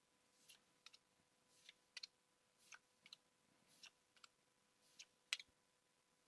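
Pokémon trading cards being flipped through one at a time, faint. Each card gives a soft swish and then a sharp click, about once a second.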